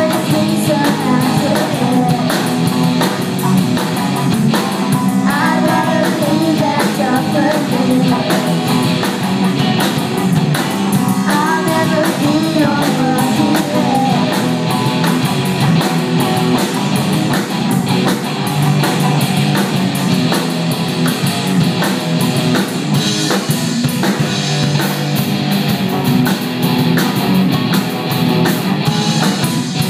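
Rock band playing a song: electric guitar, drum kit and a singing voice.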